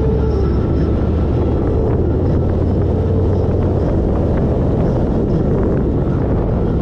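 Motorcycle engine running steadily while riding at low speed, with road and wind noise.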